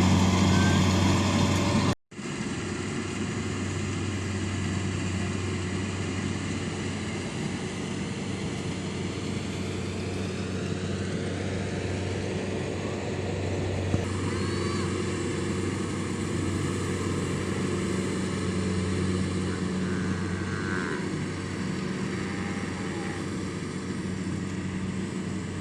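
An engine running at a steady speed, a constant low hum. The sound cuts out for an instant about two seconds in, then carries on unchanged.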